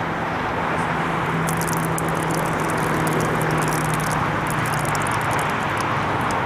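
Steady outdoor traffic noise: a rushing sound with a low vehicle hum, and fast faint ticking through the middle.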